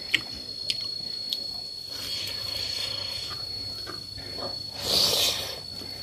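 Insects chirring in a steady high tone, with a few sharp clicks in the first second and a half and a louder burst of noise about five seconds in.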